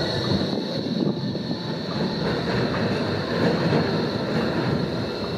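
Electric street tram running on its rails and pulling away, a steady rumble of wheels on track, with a thin high whine held throughout.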